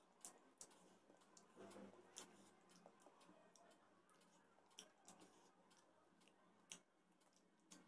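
Faint eating sounds from a person eating with their fingers: scattered small clicks and smacks about once a second as fish and rice are picked apart and chewed, over a low steady hum.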